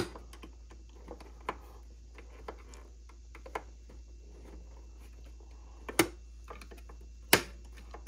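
Sharp plastic clicks as a small screwdriver pries at the latch tabs of a Keurig K-Supreme coffee maker's plastic shell, a few scattered ticks with the loudest snaps at the start, about six seconds in and just after seven seconds.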